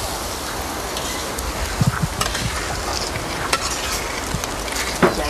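Paella pan sizzling over a wood fire as its contents fry in olive oil: a steady hiss with a few sharp knocks and crackles, the loudest near the end.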